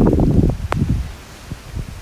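Gusty storm wind buffeting the microphone and rustling leaves, easing about halfway through. A single sharp click comes just under a second in.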